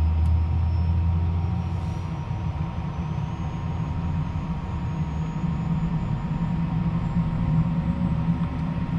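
Williams FJ44 turbofan engine of a Cessna Citation CJ3+ spooling up during its start, heard inside the cockpit. A high whine rises slowly in pitch over a low steady rumble.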